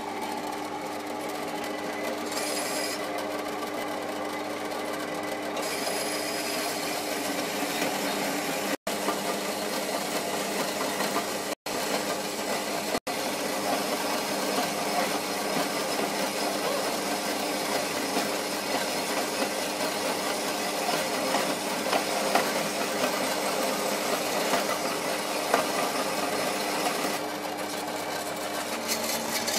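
Small bandsaw running steadily with its blade cutting a slot into a thick block, a constant motor hum under the rasp of the cut. The sound cuts out for an instant three times about a third of the way in.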